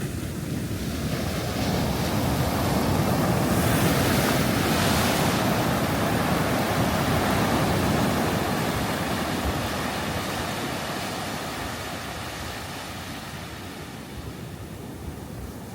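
Ocean waves breaking on a beach: a wave builds, crashes with a hissing wash about four seconds in, then slowly recedes.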